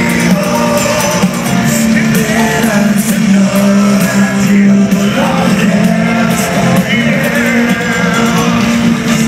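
Live rock band playing loud music with singing, heard from inside the crowd.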